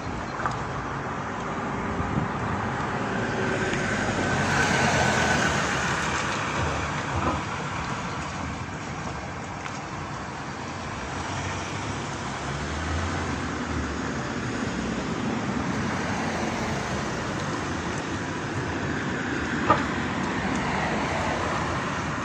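Road traffic: cars driving across a level crossing, one passing loudest about four to six seconds in, with a sharp click near the end.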